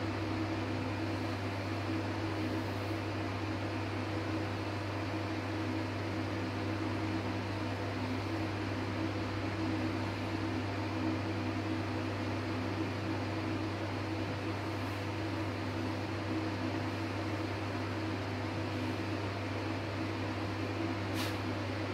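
Steady machine hum from a running electric motor: a constant low drone with a few steady tones above it and an even hiss, unchanging throughout.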